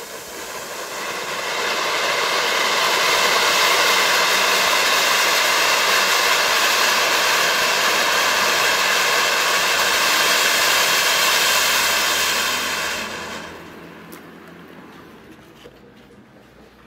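Two Funke Silberturm silver fountains, small Category 1 ground fountains, burning side by side with a loud, steady hissing spray of sparks. The hiss builds over the first two seconds and dies away about thirteen seconds in as the fountains burn out.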